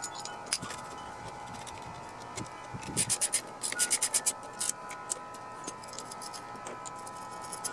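Ratchet wrench clicking as the flywheel nut is run down on a Briggs & Stratton engine, in two quick runs of sharp clicks a little after three and four seconds in.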